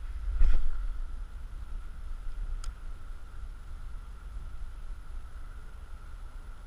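Wind buffeting the camera microphone, a steady low rumble, with one louder bump about half a second in.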